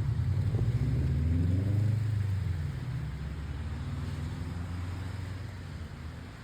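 A motor vehicle passing close by: a low engine note that rises in pitch, is loudest about two seconds in, then fades away.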